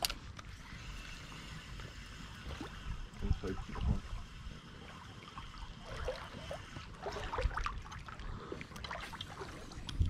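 Small river's current trickling steadily over shallow, oxygenated water, with a few soft thumps about four and seven and a half seconds in.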